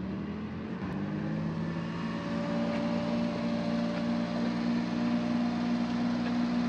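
Small kei truck engine idling steadily just after being started, its note stepping up and settling about a second in.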